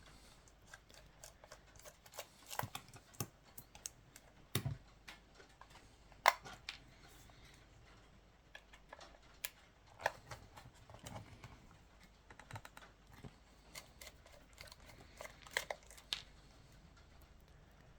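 Scattered, irregular light clicks and taps of a small screwdriver and parts being handled on a Canon EOS 5D DSLR body as it is taken apart, one sharper click about six seconds in.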